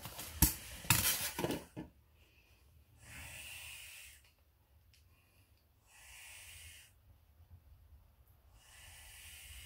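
Rustling and sharp knocks as a snake's shipping bag is handled in a cardboard box, followed by a young Guyana boa constrictor hissing three times. Each hiss is a long exhaled hiss of about a second, a couple of seconds apart, the defensive hissing of a nervous snake.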